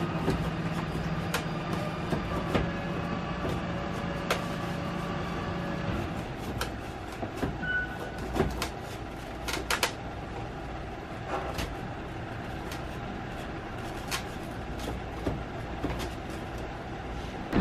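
Scattered clicks and light knocks of hand tools and plastic as an old tail light is unbolted and worked loose from a car's rear quarter. A steady low hum runs under it and stops about six seconds in.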